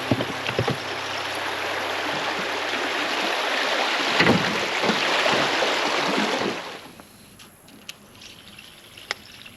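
Rushing water of a shallow river rapid, loud and steady, dropping away sharply about seven seconds in. A few faint knocks follow in the quieter water.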